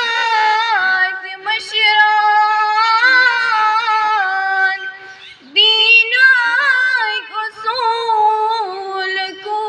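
A girl singing solo and unaccompanied into a microphone, in long held, wavering phrases, with a short break for breath about five seconds in.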